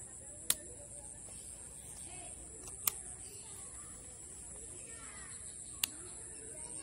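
Outdoor ambience with a steady high-pitched hiss, faint bird-like calls and three sharp clicks about two and a half to three seconds apart.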